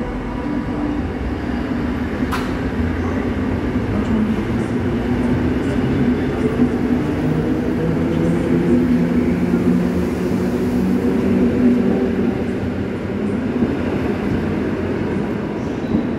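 PKP class EN71 electric multiple unit pulling away from the platform, its traction motors humming and slowly rising in pitch as it gathers speed past the listener. There is a single sharp click about two seconds in.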